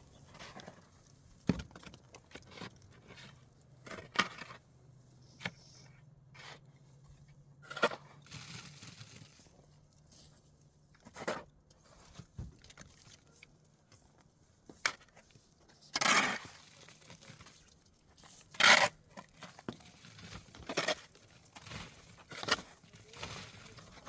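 Irregular scrapes and sharp knocks of hand work, about one every second or two. The two loudest, longer scrapes come about two-thirds of the way in.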